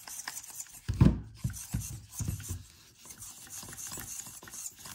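A micro crawler's steering servo whirring and grinding in short bursts as it swings the front wheels from side to side, now powered at a 6.5 V BEC setting.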